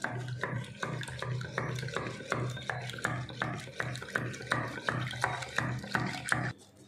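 Hand whisk beating egg whites with powdered sugar in a steel tin: a rhythmic clatter of about three strokes a second that stops shortly before the end.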